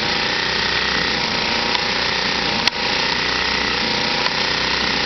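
Small 1,000-watt portable generator running steadily, powering the electric motor of a water-well pump jack while it pumps; one short click a little past the middle.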